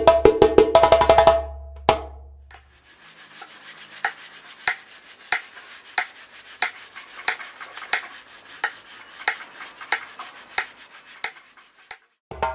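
A 13-inch melina-wood djembe played fast by hand, stopping after about two seconds with one last stroke. Then an adze chopping a wooden djembe shell in steady, evenly spaced strokes, about three every two seconds.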